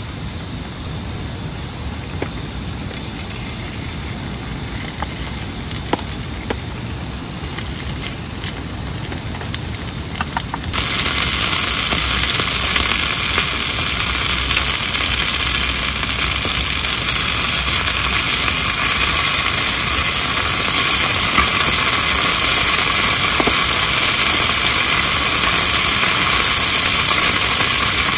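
Marinated meat sizzling loudly on a hot grill pan over a portable gas stove, the sizzle starting abruptly about eleven seconds in and then holding steady. Before it, a quieter steady low rush with a few light clicks.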